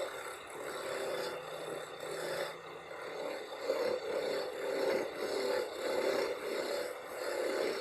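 A small electric power tool whirring as it works metal, with scraping and rubbing that swell and ease every second or so.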